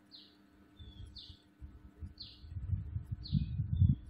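A bird repeating a short, falling chirp about once a second. A low, irregular rumble grows under it in the second half.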